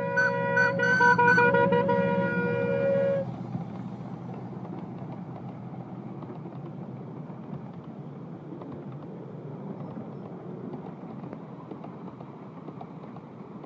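Miniature steam locomotive whistle sounding in two long blasts, the second cutting off about three seconds in. Then a 10¼-inch gauge miniature steam train runs past, with the steady noise of wheels and coaches on the track.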